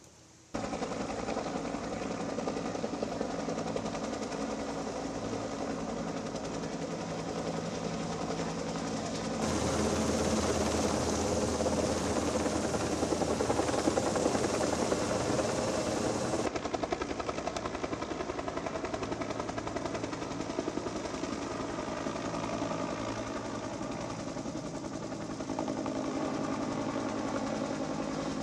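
Helicopters flying overhead, their rotors beating rapidly and evenly. The sound is louder and brighter for several seconds from about a third of the way in.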